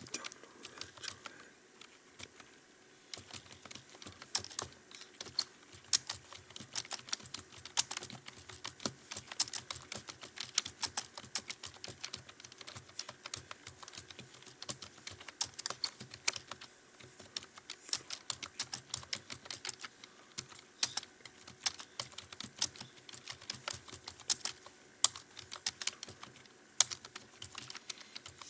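Fast typing on a computer keyboard: a dense, uneven run of key clicks during a timed typing test, with a brief lull about two seconds in.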